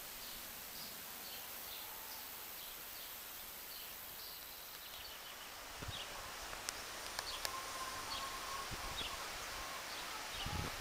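Outdoor ambience of wind: a steady hiss with leaves rustling and small birds chirping over and over in short high notes. From about halfway, wind gusts buffet the microphone in low rumbles, with a few sharp clicks.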